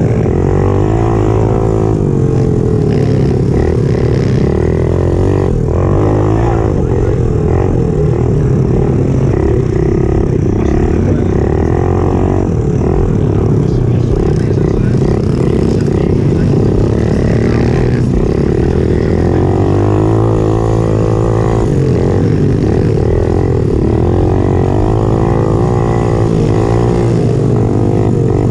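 Pit bike's small four-stroke single-cylinder engine heard close up from onboard while racing on a dirt track, the revs rising and falling again and again as the rider accelerates and shuts off.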